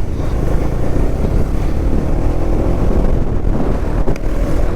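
Motorcycle engine running steadily while riding along, with wind buffeting the microphone.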